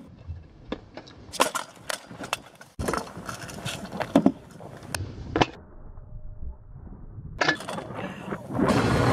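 Kick scooter wheels rolling on rough asphalt, with a string of sharp clacks and bangs as the scooter rides up and lands off a wooden kicker ramp and as it hits the road in a fall.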